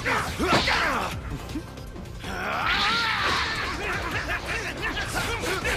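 Fight-scene soundtrack: dramatic background music with punch-impact and swoosh sound effects as blows are thrown and dodged, dipping briefly about a second in.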